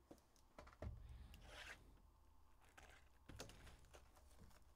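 Hands handling a shrink-wrapped hockey card box on a table: faint knocks and bumps, with a brief rustle of the plastic wrap about a second and a half in.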